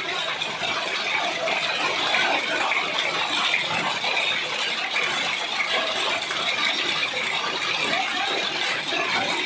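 Heavy hail falling: a dense, steady clatter of hailstones striking hard surfaces, without let-up.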